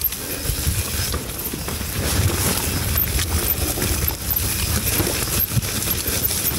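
Mountain bike descending a muddy downhill trail: a continuous rough rumble with many small metallic clinks and rattles from the bike.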